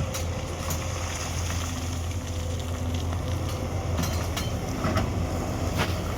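Hyundai 210 excavator's diesel engine running steadily under work, with a few sharp knocks, about a second in and again several seconds in.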